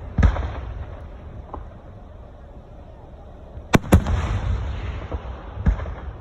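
Aerial fireworks going off: a bang near the start, two sharp cracks in quick succession a little past halfway, and another bang near the end, each trailed by a low rolling rumble.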